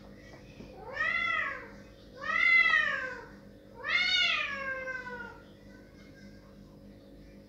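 A cat meowing loudly three times in quick succession, each call rising then falling in pitch, the third the longest and sliding down at its end. It is crying to have a closed door opened.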